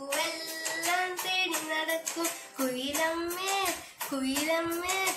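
A boy singing a song unaccompanied, holding and bending long notes in phrases with short breaths between them.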